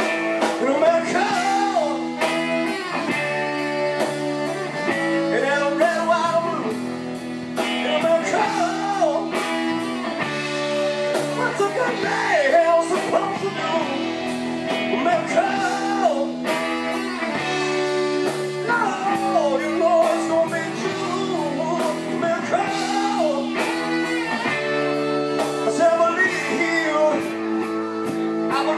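Live blues-rock band playing an instrumental break: a saxophone plays a wavering solo line over electric guitars and drums.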